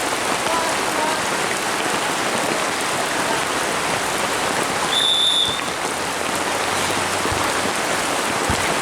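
Heavy rain falling steadily in a continuous hiss. About five seconds in comes one short, high whistle blast.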